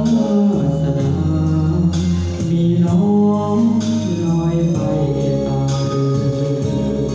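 A man singing into a microphone over backing music, holding long notes that bend in pitch.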